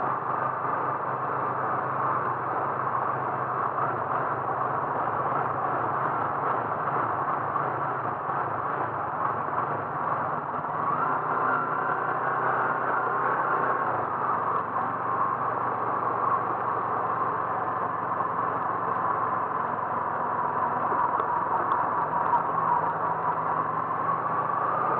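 Car running steadily on the road, with an even blend of engine and road noise and a faint slow rise and fall in pitch.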